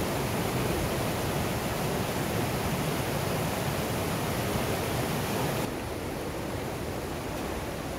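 Rushing whitewater of a monsoon-swollen mountain river, a steady loud rush of water over rocks. About six seconds in it drops abruptly to a softer, duller rush.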